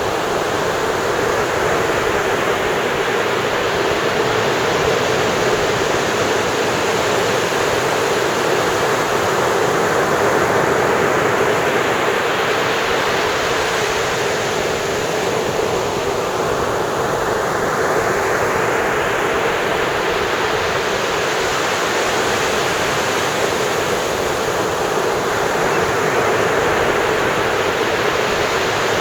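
Ocean surf breaking on a beach: a steady, continuous wash of waves.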